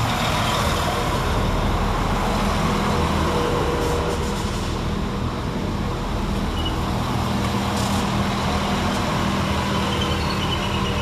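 Northern Class 195 diesel multiple unit at the platform, its underfloor diesel engines running with a steady low drone.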